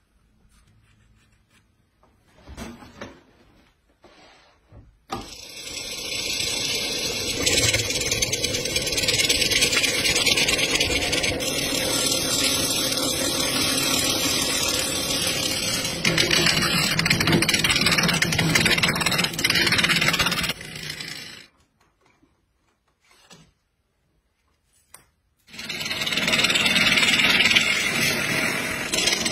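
Wood lathe spinning a rough wood blank while a hand-held gouge cuts into it: a loud, steady, noisy cutting sound. It runs from about five seconds in to about twenty-one seconds, stops, and starts again about twenty-five seconds in.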